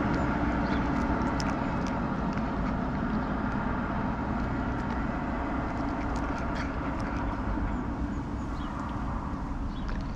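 Low rumble of a car on the street, slowly fading, with scattered small crisp crunches of a cat chewing dry kibble close by.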